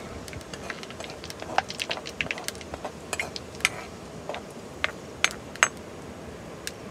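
Metal ladle clinking and scraping against a black metal kadai while stirring, with about a dozen sharp taps spread through, over a steady faint sizzle of hot frying oil.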